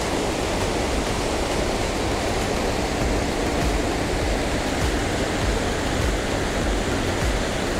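Fast mountain stream rushing over rocks and small falls: a steady, unbroken rush of white water.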